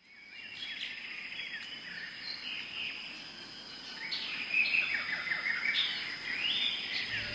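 Several songbirds singing and chirping in a forest, with quick whistled notes and trills overlapping, fading in from silence at the start. A steady thin high-pitched tone runs underneath.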